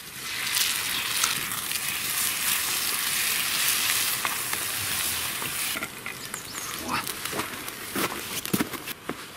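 Food frying in a pan over a wood fire, sizzling loudly while it is stirred. The sizzle drops away about six seconds in as the pan is taken off the flames, leaving a few scattered light clicks.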